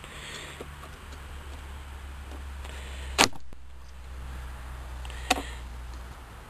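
Two sharp knocks about two seconds apart, the first louder, over a steady low hum.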